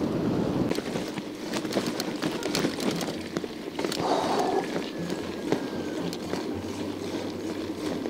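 1991 Scott Montana mountain bike being ridden: a steady rushing road noise with many small clicks and rattles from the bike.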